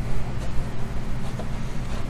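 Creality Ender 3 V2 Neo 3D printer just switched on, its fans and power supply humming steadily while it boots, with a few faint clicks.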